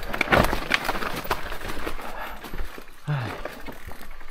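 Irregular clatter and knocks of a mountain bike rattling down a steep, rocky trail, with a short low voice sound about three seconds in.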